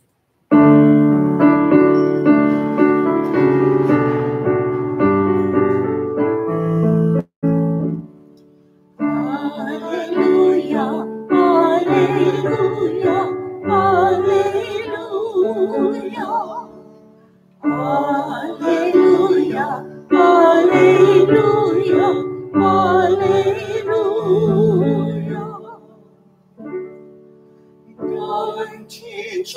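Keyboard playing sustained chords as an introduction, then a cantor singing the Gospel Acclamation over the keyboard from about nine seconds in, in phrases with short pauses between them.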